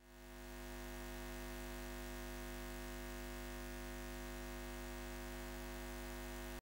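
Steady low electronic drone of several held tones, fading in over the first half second and cutting off abruptly at the end.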